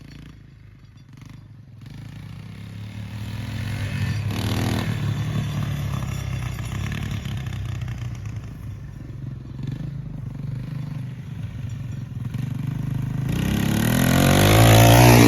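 1986 Yamaha YTM225 three-wheeler's single-cylinder four-stroke engine running as it is ridden, faint at first, then growing louder, and loudest near the end as it comes close.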